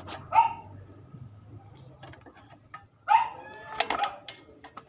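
A dog barking twice, about three seconds apart, followed by a few sharp clicks.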